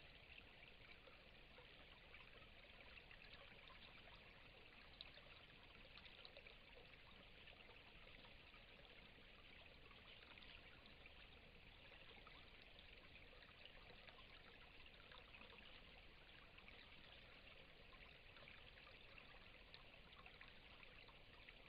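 Near silence: a faint, steady hiss with a few tiny ticks scattered through it.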